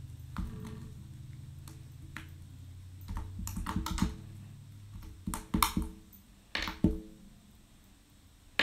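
Glitter slime being kneaded and squeezed by hand, giving clusters of sharp wet clicks and pops from about three seconds in. A low steady hum sounds under the first half.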